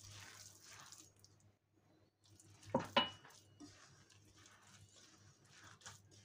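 Hand kneading a crumbly oat, walnut and flour cookie dough in a glass bowl: soft rustling and squishing. About three seconds in there are two sharp knocks, the second with a brief ring.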